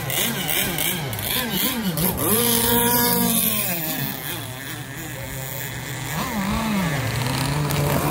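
Zenoah two-stroke gas engines of radio-controlled racing catamarans running on the water, their pitch rising and falling repeatedly as the boats throttle up and back off. The sound dips a little around the middle, then holds a steadier high pitch near the end.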